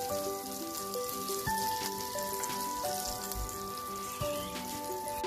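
Mudskipper fish sizzling in hot oil in a frying pan, with a few sharp clicks as steel tongs lift them out. Background music with held notes plays throughout.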